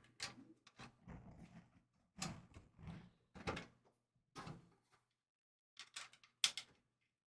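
Irregular knocks, clicks and scrapes of CPU cooler mounting hardware being handled and fitted to a motherboard.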